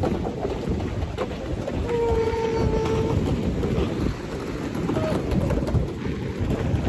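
Wind buffeting a phone's microphone over surf breaking below an ocean pier: a steady, loud rumble. About two seconds in, a steady tone holds for about a second.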